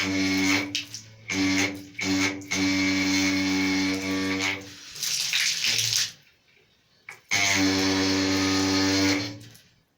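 Water tap humming loudly as water runs: a steady droning tone over the hiss of the flow, stopping and starting several times, with a stretch of plain running-water hiss without the hum a little past the middle. The hum comes from the tap's crank-axle valve cartridge (кран-букса).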